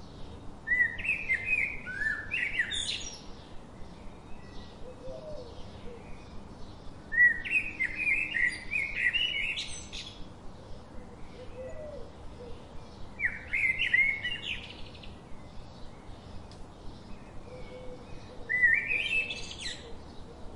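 A songbird singing four phrases about six seconds apart, each a quick run of high notes ending in a rising flourish. A faint rapid ticking runs underneath, with a few soft, lower calls between the phrases.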